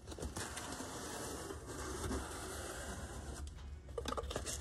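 Cardboard box being opened by hand: the lid and flaps scraping and rustling against the cardboard, with a few sharper knocks near the end.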